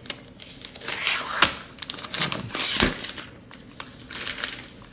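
Thin plastic protective wrap crinkling and rustling in several bursts as it is peeled off a laptop.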